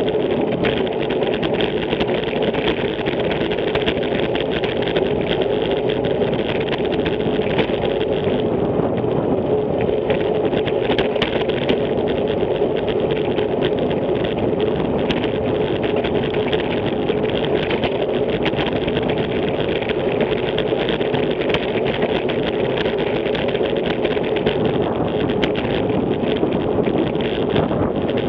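Steady rushing wind noise on the microphone of a camera moving through city road traffic, mixed with the running of car engines and tyres on the road.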